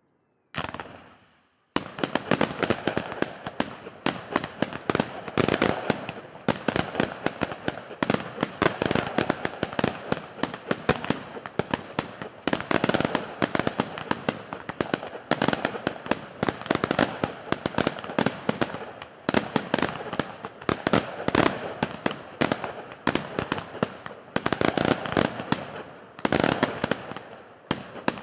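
Fireworks display: a single burst about half a second in, then from about two seconds in a dense, unbroken barrage of rapid bangs and crackles.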